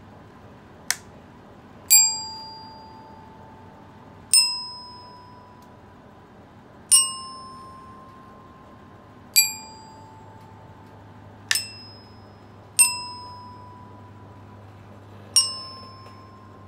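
Student bell kit (glockenspiel) played one slow note at a time with a single mallet, a struck note about every two and a half seconds, each ringing and fading. The notes step between a few neighbouring pitches, as a beginner reads a simple melody note by note. Two of the strikes are short and clipped.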